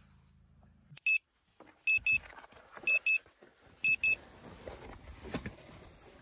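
Electronic alarm beeping: a single high beep about a second in, then three quick double beeps about a second apart. Rustling and a sharp click follow.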